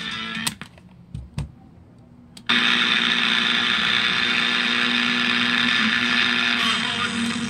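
Loudspeaker of a homemade germanium-transistor amplifier, fed from an Aiwa radio cassette player. A click cuts the sound off, a few faint clicks follow as the radio is switched and tuned, then about two and a half seconds in loud, noisy radio sound cuts in suddenly and plays on.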